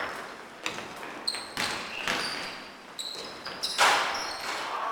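Basketball game sounds in a gym: sneakers squeaking on the court and a ball bouncing, with a louder burst of noise just under four seconds in.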